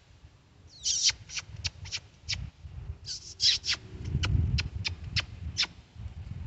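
Squirrel call sounded at the mouth: short, sharp, high squeaks about three or four a second, in runs that each open with a brief raspy burst, mimicking squirrel chatter to draw squirrels out.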